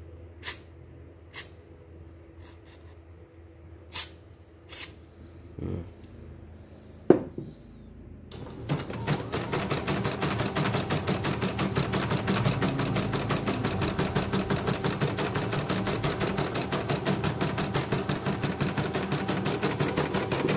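A few short hisses of spray lubricant on the needle mechanism of a CNY E900 embroidery machine, then, about eight seconds in, the freshly oiled machine starts stitching with a fast, even mechanical clatter on a test run after repair.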